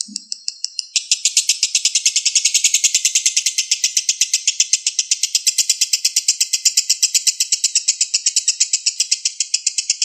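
Lovebird singing its 'ngekek', a fast, unbroken run of high, evenly repeated chattering notes that grows louder about a second in and never pauses. This long unbroken chatter is what bird keepers call a 'konslet' lovebird.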